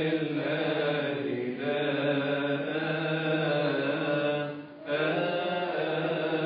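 Coptic liturgical chant in a low male register, the response sung after the Gospel reading: long held notes that move slowly in pitch, with a short pause for breath about four and a half seconds in.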